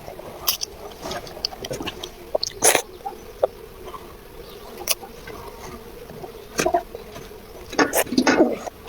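A child eating: irregular small clicks, smacks and taps of chewing and utensils, with a few louder ones spread through.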